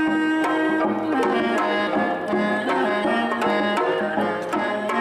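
Korean traditional ensemble playing a lively tune: plucked gayageum and a bowed haegeum carry the melody over a steady beat of janggu hourglass-drum strokes. A long held note gives way to a moving melodic line about a second in.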